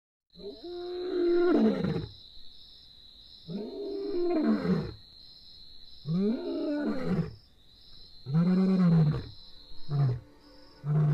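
Male lion roaring: four long roars about two seconds apart, then shorter, grunting roars that come more quickly near the end.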